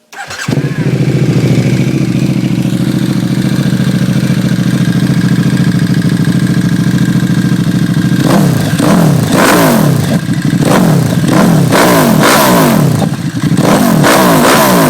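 2008 KTM RC8's 1148 cc V-twin engine, through an aftermarket QD exhaust, comes in suddenly and idles steadily. From about eight seconds in it is revved in a string of quick throttle blips, each rising and falling back.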